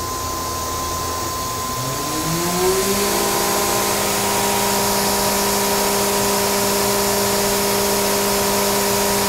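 Makino SNC 64 machining center's 15,000 RPM spindle spinning up: a rising whine for about a second and a half, then running steadily at speed with a constant whine and hiss.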